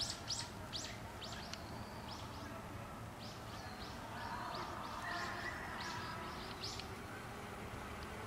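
Small songbirds chirping: quick runs of short high calls, one cluster at the start and another from about three seconds in to near seven seconds, over a faint steady low background rumble.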